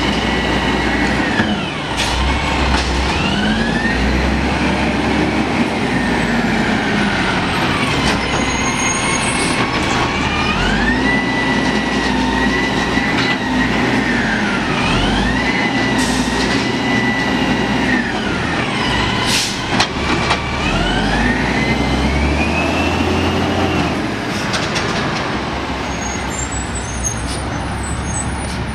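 Automated side-loader garbage truck revving its engine up and down again and again to drive the hydraulic arm. Each rev climbs over about a second, holds and then drops back. A few sharp knocks come from the carts being lifted and dumped.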